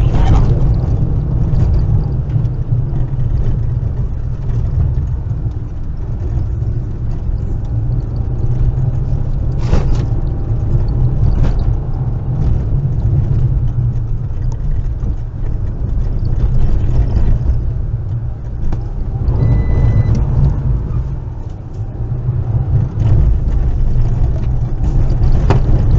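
Stock Fiat Panda 100HP driven fast on a gravel road, heard from inside the cabin: its 1.4-litre four-cylinder engine and the tyres on loose gravel make a heavy, steady rumble, with a few sharp ticks along the way.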